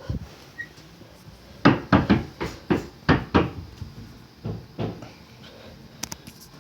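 Banging knocks: about seven in quick succession, then two fainter ones a second later.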